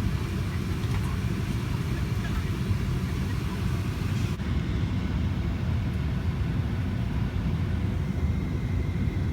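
Steady low rumble of a Boeing 737-900 jet airliner's engines and airflow, heard from inside the cabin.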